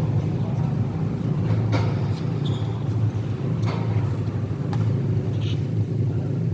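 Basketball game sounds over a steady low rumble: a few sharp knocks of the ball bouncing on the court, a couple of seconds apart, and brief high squeaks of shoes.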